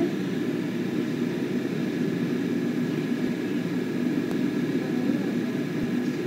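Steady low rumble of room noise with a faint, constant high whine.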